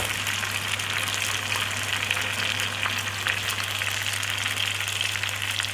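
Sliced onions frying in a pan: a steady sizzle with fine crackles throughout.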